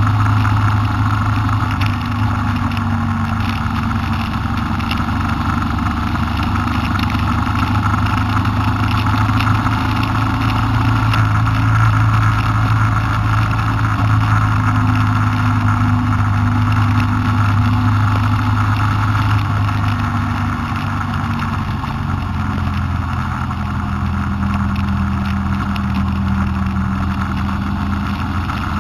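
Honda Transalp motorcycle engine running at a steady cruise, heard with loud wind and road noise; the engine note eases down a little about two-thirds of the way through.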